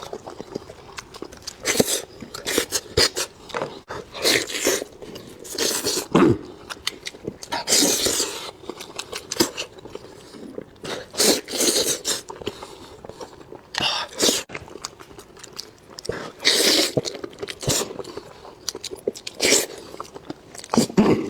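A person eating: repeated crunchy bites and chewing, in louder clusters every two or three seconds.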